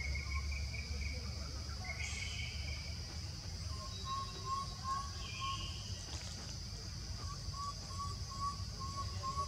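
Tropical forest ambience: a steady high insect drone over a low rumble, with birds calling. From about four seconds in, a bird repeats short, even notes about three a second, with a brief pause partway through.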